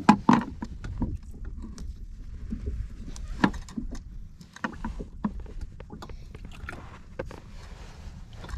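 Scattered small knocks and clicks of fishing line and tackle being handled on a plastic kayak, over a steady low rumble of wind and water. The loudest knocks come just at the start and about three and a half seconds in.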